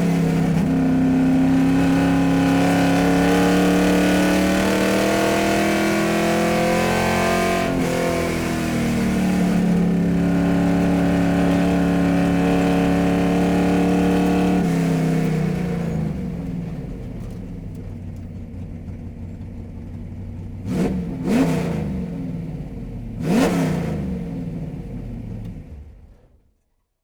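Car engine pulling under load with its pitch climbing, dipping briefly about eight seconds in as if on a gear change, then holding steady. Around sixteen seconds it drops to idle, is blipped twice in short revs, and fades out just before the end.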